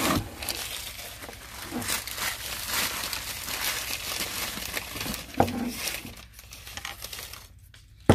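Wrapping paper crinkling and rustling as paperweights are unwrapped, with a knock about five seconds in and another at the end as heavy glass and stone pieces are set down on the table.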